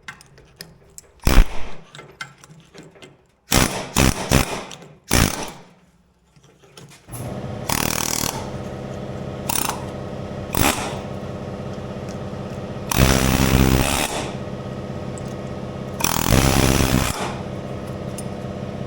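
Hammer blows on steel driving a worn pin bushing out of a skid steer's attachment pivot: a few sharp metal strikes in the first six seconds. About seven seconds in, a steady motor drone starts, with two loud bursts of an air hammer in the middle and near the end.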